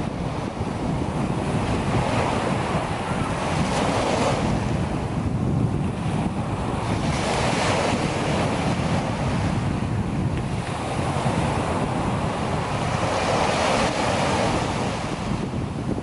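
Small sea waves breaking on a sandy beach and washing up the shore, the hiss of the wash swelling and fading every few seconds over a steady surf rumble. Wind buffets the microphone throughout.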